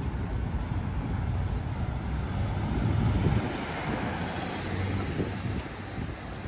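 Street traffic at an intersection: a steady low rumble of car engines, with a car passing close by about three to four seconds in, its engine and tyre noise swelling and then easing off.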